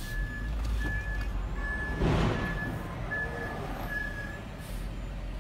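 Concrete mixer truck's backup alarm beeping repeatedly, about once a second, over the steady low rumble of its diesel engine. There is a short burst of hiss about two seconds in.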